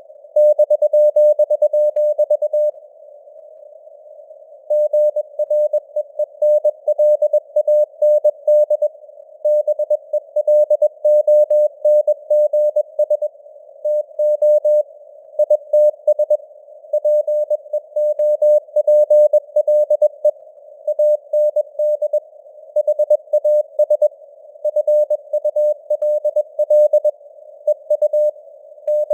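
Morse code (CW) sent at 21 words per minute: a single steady mid-pitched tone keyed on and off in rapid dots and dashes, over a narrow band of simulated radio hiss, with a pause of about two seconds near the start.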